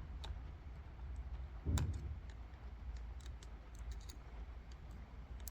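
Small metallic clicks and taps from lock picks being worked in a small steel motorcycle lock, with one louder knock a little under two seconds in.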